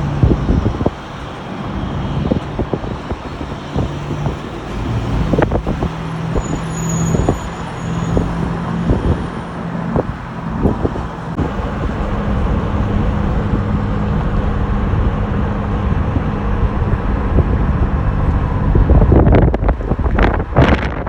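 Steady low rumble of a jet airliner's engines on landing approach, mixed with road traffic noise. Wind buffets the microphone near the end.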